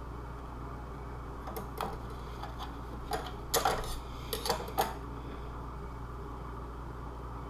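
A few light clicks and knocks, mostly bunched in the middle, from armor pieces being handled and pressed into place, over a steady low hum.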